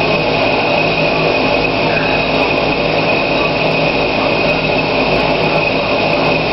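Steady machine drone: a constant high-pitched whine over a low hum and noise, unchanging throughout.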